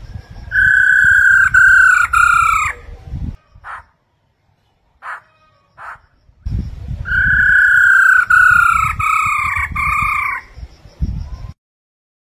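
Black-throated laughingthrush calling: two loud phrases of slurred, slightly falling whistled notes, three or four notes each, with short clipped calls between them. A low rumble runs under each phrase.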